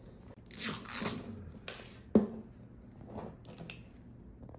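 Plastic toy packaging being torn open and crinkled by hand, with one sharp click about two seconds in.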